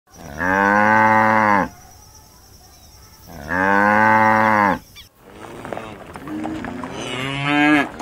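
Cows mooing: two long, loud moos, each about a second and a half, with a pause between them. In the second half, after a break, quieter overlapping lowing from several cattle follows.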